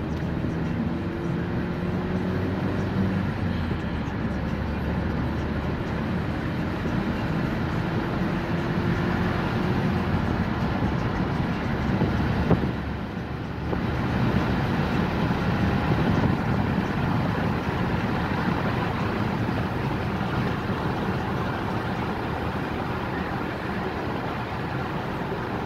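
Car driving along a road, heard from inside the cabin: steady engine and tyre noise, the engine note climbing slowly in the first ten seconds as it gathers speed. A single knock about halfway through.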